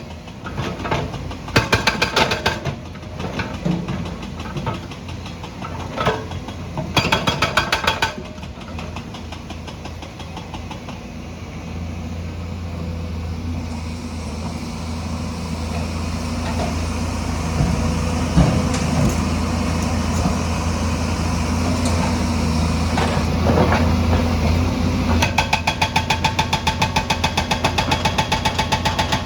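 Hydraulic stone breaker on a JCB machine hammering in bursts of rapid blows: a few short bursts in the first eight seconds, then steady hammering again over the last four seconds. Between the bursts a diesel engine runs steadily, growing louder towards the middle.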